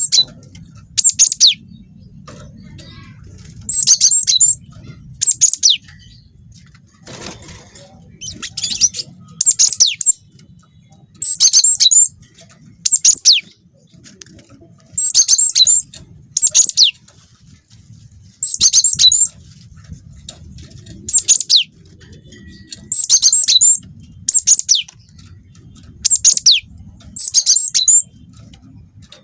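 Cinereous tit (gelatik batu) singing: short, high-pitched phrases of quick notes, repeated every one and a half to two seconds, over a faint low hum.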